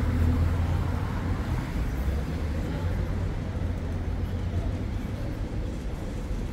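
Steady low rumble of road traffic in the city, with no distinct single event standing out.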